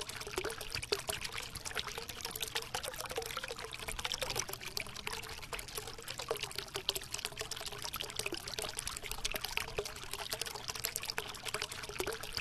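Shallow rocky stream trickling and splashing over stones: a steady babble made of many small splashes.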